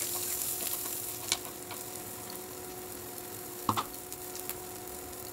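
Chopped red onions and curry leaves sizzling in hot oil in a non-stick pan as they fry, stirred with a metal spoon. A steady hum from the induction cooktop runs underneath, with a light knock about a second in and a louder one past the middle.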